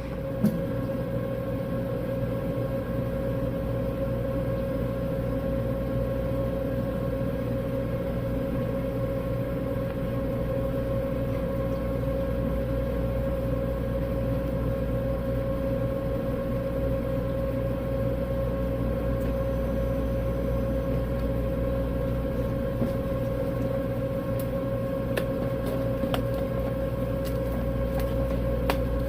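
Steady mechanical hum from running HVAC equipment, with a constant mid-pitched tone over a low rumble, and a few faint clicks near the end.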